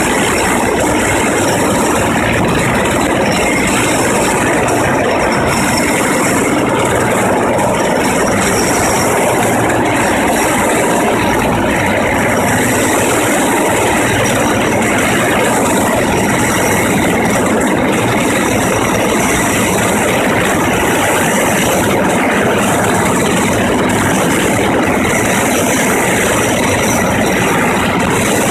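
Erickson S-64 Skycrane heavy-lift helicopter hovering with a sling load, its twin turbine engines and main rotor making a loud, steady noise.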